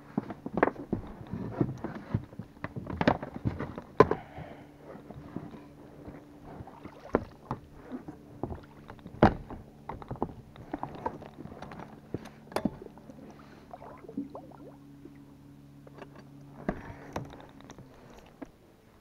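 An inflatable PVC boat being rowed: irregular knocks and clatter of the oars working in their oarlocks and against the hull, with water sounds. A faint steady low hum runs underneath for most of the time.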